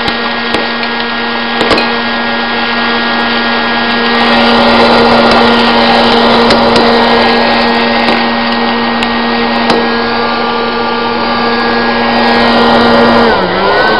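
Hot-air popcorn machine running: a steady motor hum over rushing air, with an occasional kernel popping. Near the end the hum drops in pitch and wavers.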